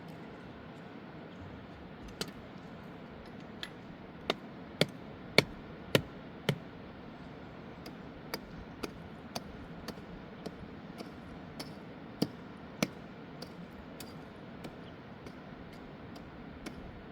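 A series of sharp, irregularly spaced knocks or taps, densest and loudest a few seconds in and sparser later, over a steady rushing background.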